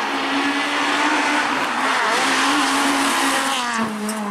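Rally car engine running hard at high, steady revs over a dense rush of tyre and road noise. About four seconds in, the engine note changes abruptly to a slightly lower steady tone.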